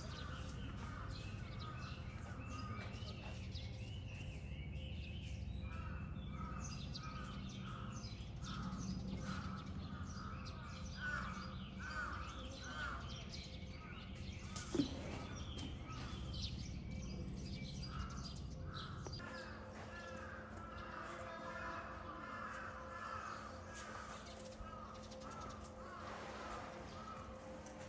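Crows cawing in runs of short repeated calls, over a steady low background rumble.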